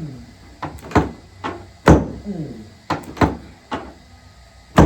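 An irregular series of sharp knocks, about nine in five seconds, the two loudest about two seconds in and at the very end.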